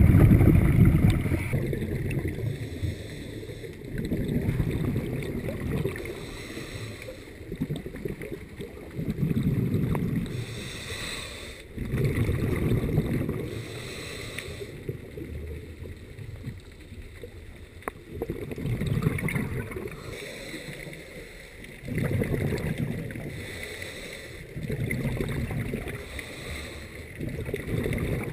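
Scuba diver breathing through a regulator underwater: low, rumbling bursts of exhaled bubbles recur every few seconds, the loudest at the start.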